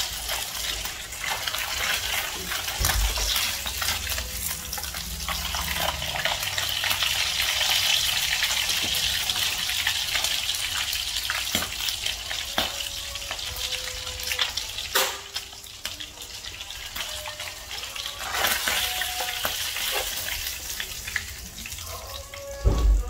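Fish steak shallow-frying in hot oil in a pan: a steady, dense sizzle full of crackling pops. A metal spatula scrapes and clinks against the pan, with a loud knock near the end as the fish is lifted out.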